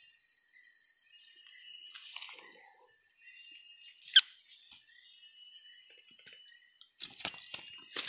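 Steady high-pitched drone of forest insects, crickets or cicadas, with one sharp click about four seconds in. Near the end comes a crackle of dry leaf litter being rustled by hand.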